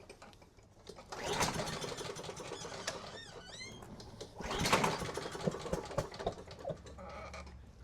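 Honda lawn mower engine being pull-started twice on its recoil starter, cranking over but not firing even with carb cleaner sprayed into the intake. The engine has zero compression.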